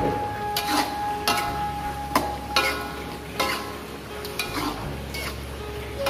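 A metal spoon stirring chicken pieces in thick chilli sauce in a metal wok. It makes irregular clinks and scrapes against the pan, several times a second at its busiest, over a soft sizzle of the cooking sauce.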